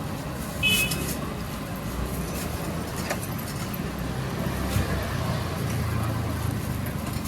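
Steady low rumble of street traffic under outdoor market bustle, with a few faint clicks and a brief high squeak about a second in.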